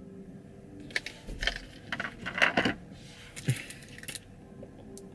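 Handling noises: a run of short clicks and crinkles from a plastic water bottle being picked up and opened, with the supplement tub and scoop handled, as dry pre-workout powder is washed down.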